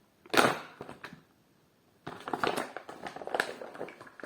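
Packaging being handled and opened: a sharp rustle about a quarter second in, a short pause, then a run of small crinkling, crackling noises from about two seconds in.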